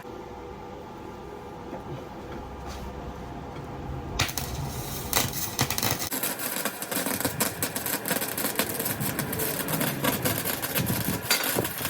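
Flux-core wire welder laying a bead on steel box section: a dense, steady crackle that starts about four seconds in, after a low hum.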